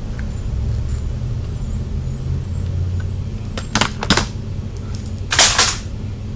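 Two sharp clicks about four seconds in, then a louder clatter about a second later: something being dropped. A steady low rumble runs underneath.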